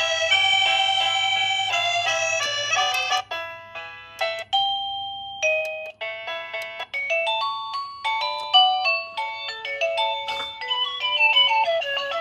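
Electronic doorbell chime playing its melody tunes: one tune of held notes ends about three seconds in, and after a brief pause and a single held note a new melody of short, quick notes starts.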